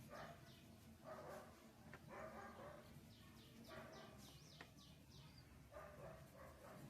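Faint background of a dog barking in the distance, short barks about once a second, with birds chirping in a run of high, falling notes about halfway through.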